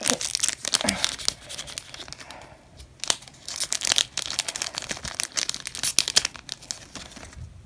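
Crinkly foil wrapper of an opened Pokémon booster pack being handled as the cards are slid out, in two spells of crackling with a quieter moment about two to three seconds in.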